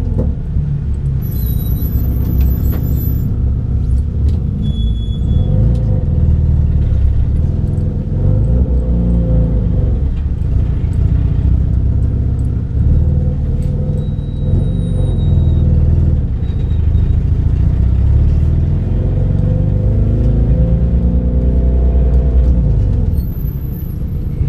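A car's engine and road rumble heard from inside the cabin at low speed, the engine note slowly rising and falling with light throttle.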